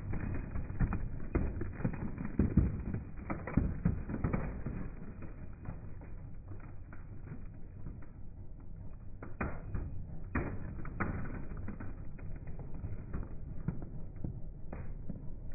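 Slowed-down crunching of a pickup truck's tyre rolling over gravel and a flat LCD screen: a low rumble with scattered cracks and crackles, the sharpest in the first few seconds and again around ten seconds in.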